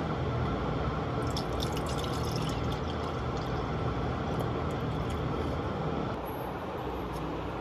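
A steady rushing background noise with a low hum, easing slightly about six seconds in, with a few light clinks of a steel cooking pot and mug being handled between about one and three seconds in.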